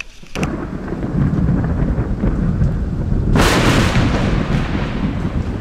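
Thunder rumbling, with a sudden louder crash about three and a half seconds in that dies away slowly.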